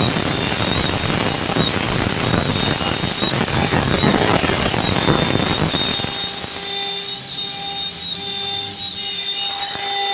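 Wood-carving CNC router (1325 type) cutting wood: a dense, rough cutting noise over the spindle's high steady whine. About six seconds in the cutting noise drops away, leaving the spindle and drive motors running with steady whining tones.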